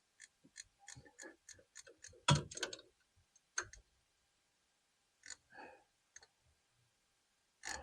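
Socket ratchet clicking in a quick, even run of faint ticks as a 13 mm nut is run down, then a few louder clinks and knocks of metal tools.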